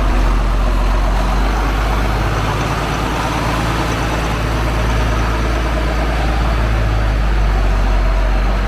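John Deere 4440 tractor's six-cylinder turbo diesel engine running steadily, a deep, even drone with a slight shift in pitch near the end.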